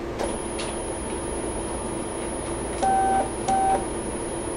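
Stepper motor of a small desktop CNC mill jogging the Z axis down, heard as two short bursts of a steady whine about three seconds in, over a steady low hum from the machine.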